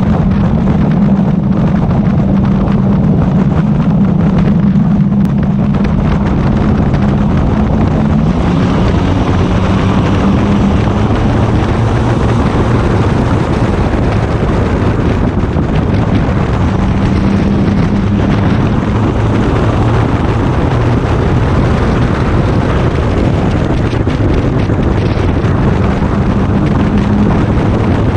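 Six-cylinder short-track race car engine running hard at racing speed, heard from a camera mounted on the car, with wind rushing over the microphone. The engine pitch drops about eight seconds in and rises again a few times later.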